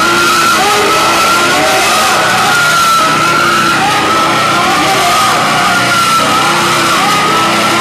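Live band playing loud, noisy, distorted music without a break, with a held high tone that wavers slightly above lower shifting pitched lines.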